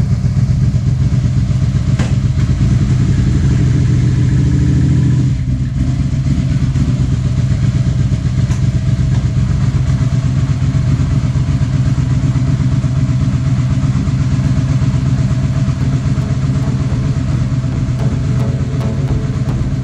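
Suzuki SV650's freshly reassembled 645 cc V-twin engine running on its own after the rebuild. About five seconds in the engine note drops and quietens, and it then keeps running steadily at idle.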